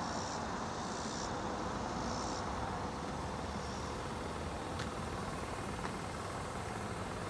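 Steady outdoor background rumble of distant road traffic. Three short high-pitched buzzes come in the first two and a half seconds, and a couple of faint ticks follow later.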